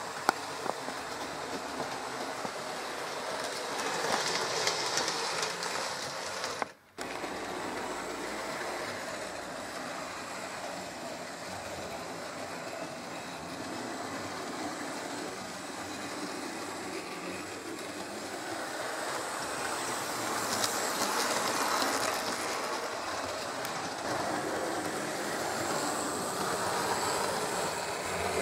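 H0-scale model diesel locomotive running along the layout track with a coach in tow: a steady whir of the small motor and rolling wheels, with occasional clicks of the wheels on the rails. The sound drops out for a moment about seven seconds in.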